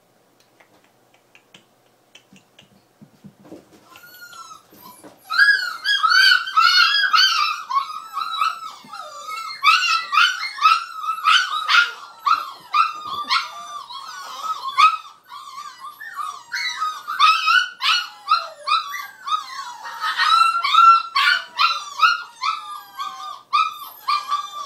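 Nova Scotia duck tolling retriever puppy whining and yipping non-stop in high, rising-and-falling cries, starting about five seconds in after some faint rustling.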